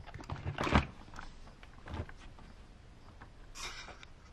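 Light handling noises of an Axial Yeti 1/10 RC rock racer chassis held in the hands: a knock just under a second in, a lighter click around two seconds, and a short rustle near the end.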